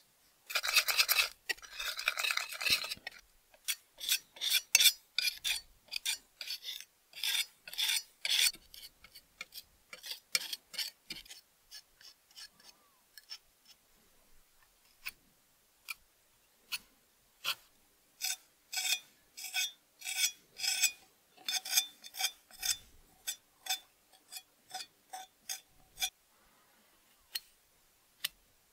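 A thin metal spatula scrapes and spreads metal finishing putty over the metal shell of a 1905 Louxor Supra bicycle lantern. There are a couple of seconds of continuous scraping near the start, then a run of short separate scraping strokes.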